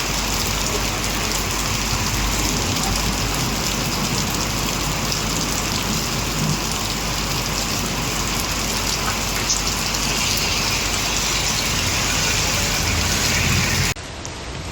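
Heavy rain falling in a steady hiss over a low rumble. Near the end it cuts abruptly to a quieter rain sound.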